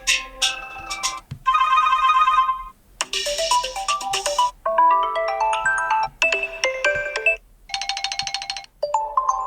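A TCL 30 smartphone playing short previews of its stock ringtones one after another. About five different electronic tunes and trills each play for a second or two, then cut off and the next one starts.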